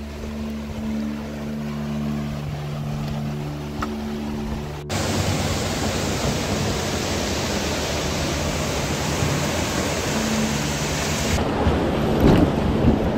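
Ambient music with low sustained tones, cut off abruptly about five seconds in by the loud, steady rush of a fast whitewater river. Near the end, from on the water in an inflatable kayak, the rush carries a few sharp splashes or knocks.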